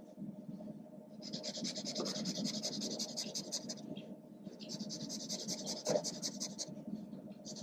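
Felt marker nib scrubbing back and forth across kraft paper in quick shading strokes, a dry rasping rub. Two runs of strokes, each a couple of seconds long, with a short pause between them.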